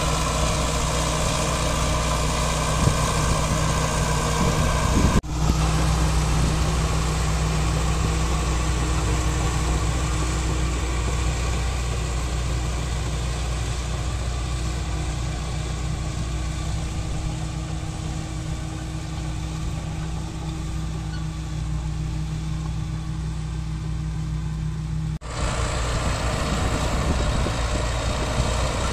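Caterpillar D4H crawler bulldozer's diesel engine running steadily with a low hum. The sound cuts off abruptly and picks up again twice, about five seconds in and near the end.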